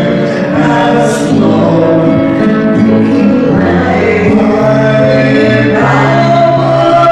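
A woman and a man singing a slow worship song to acoustic guitar, with held notes.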